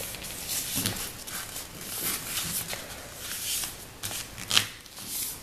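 A sheet of paper being folded and pressed flat by hand on a wooden tabletop: on-and-off rustling and sliding, with a sharper crackle of the paper about four and a half seconds in.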